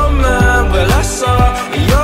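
Background pop/R&B song with a steady beat and deep bass.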